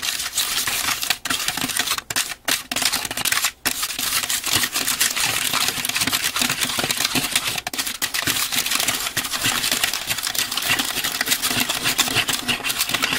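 Small plastic stirrer scraping and clicking rapidly against a plastic mould tray as candy powder and water are mixed into a paste.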